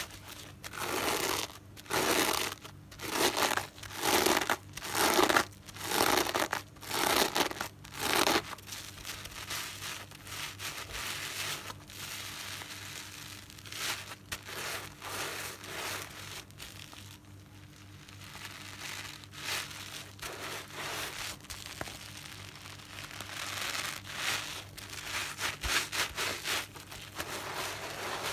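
A soapy natural car sponge being squeezed and kneaded by hand: wet squelching with crackling foam. For the first eight seconds there is about one loud squeeze a second, then quieter continuous crackling and squishing of the lather.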